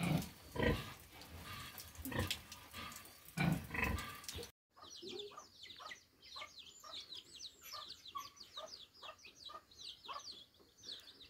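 Pigs grunting, a handful of separate low grunts from a sow and her piglets, then a quick run of high, falling peeps from chicks that goes on to the end.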